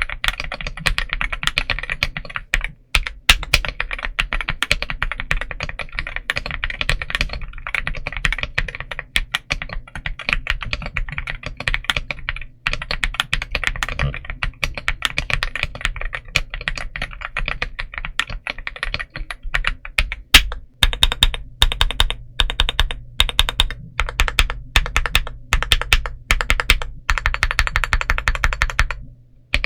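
Typing sound test on a Monsgeek M1V5 aluminium 75% mechanical keyboard: fast, continuous keystrokes. In the last third the strokes turn more even and regular, with a brief pause near the end.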